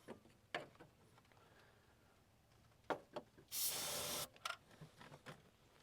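A short burst of aerosol brake cleaner, one hiss of under a second about three and a half seconds in, sprayed as a starting aid into an engine that cranks but won't start. Scattered light clicks and knocks come before and after it.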